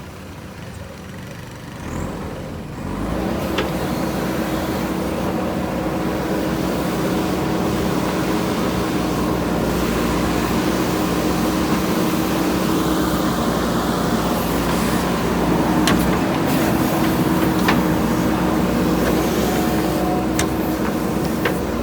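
JCB backhoe loader's diesel engine running steadily, getting louder about three seconds in, with a few sharp clicks along the way.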